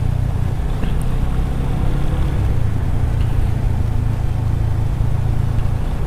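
Motorcycle running steadily at cruising speed, its low engine drone mixed with wind and road rumble.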